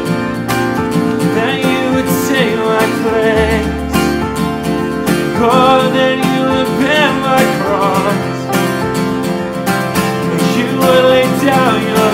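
A man singing a worship song while strumming a steady rhythm on an acoustic guitar.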